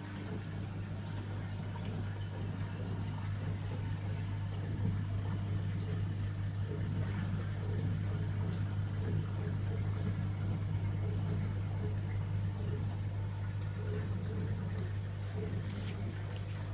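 Reef aquarium system running: a steady low hum from its pumps, with water running and trickling.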